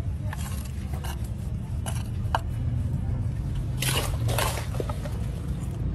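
Wet squishing and scraping of hands mixing spice-coated vegetables and pressing them into a pot, with a few short clicks and a busier patch of squelching about four seconds in, over a steady low rumble.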